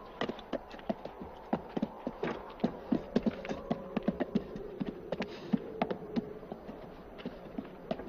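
Horses' hooves clopping at a walk on hard dry dirt, mixed with men's boot footsteps: a run of irregular knocks, several a second.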